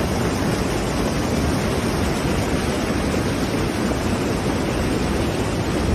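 Muddy floodwater pouring over a low weir and churning through rapids: a steady rushing of water.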